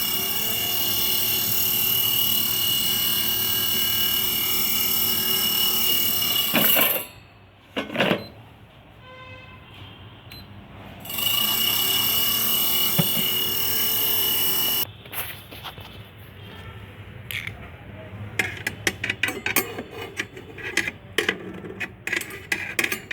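Inalsa air fryer's fan motor running with a loud rushing noise and a steady high whine, the noise reported as its fault; it cuts off about seven seconds in and runs again briefly in the middle. After that come a series of sharp clicks and knocks.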